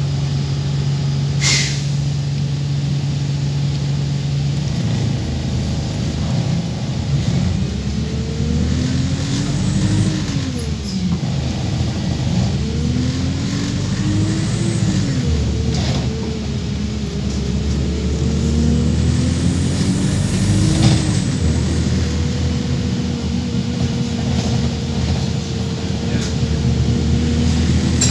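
Wright StreetLite Max bus's DAF engine heard from inside the saloon: idling, then pulling away about five seconds in. The engine note rises and drops back through three automatic gear changes, then settles into a steady cruise. A short sharp noise comes about a second and a half in, and this bus's gearbox is one the uploader reckons sounds dodgy and in urgent need of replacement.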